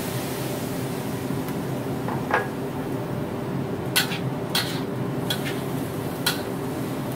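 Metal spatula scraping and clinking against a wok while stir-frying squid strips, pork and dried tofu: about half a dozen sharp, irregular knocks from about two seconds in, over a steady low hum.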